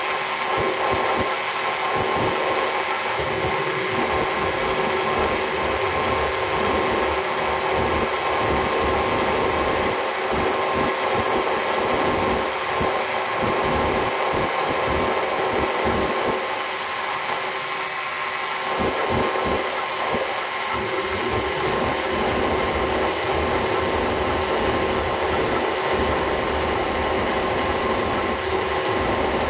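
Engine of a 250 kVA generator set running steadily at one constant pitch.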